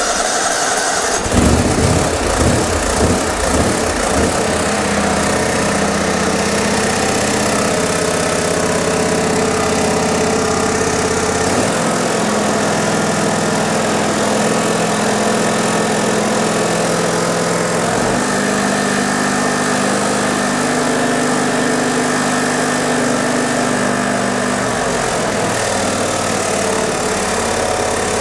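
The Kawasaki FH661V V-twin engine of a John Deere X320 riding mower just after starting: uneven for the first few seconds, then running steadily, its note shifting about twelve and eighteen seconds in. It is the test run after fitting a new ignition coil, and the older mower rattles a lot.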